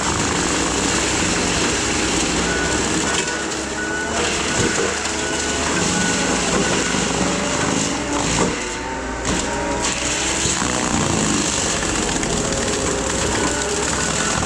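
Case skid steer's diesel engine running under load while its Shearex mulching head spins and chews through weeds. The engine and drum pitch wavers up and down as the load changes.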